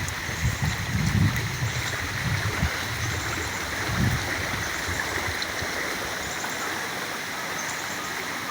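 Floodwater rushing in a swollen stream: a steady, even rush, with low gusty rumbles during the first few seconds that then die away.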